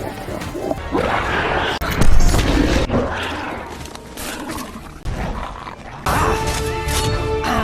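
Animated-film action soundtrack: music under crashes and booms, the loudest a sudden crash about two seconds in; a steady held note comes in about six seconds in.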